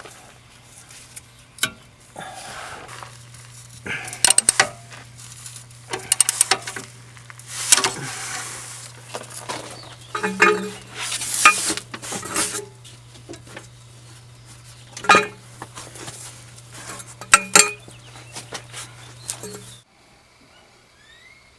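Metal hand tools and parts clinking and rattling in short bursts, with scraping and shuffling between them, during hands-on work on a car exhaust; a steady low hum runs underneath and everything cuts off near the end.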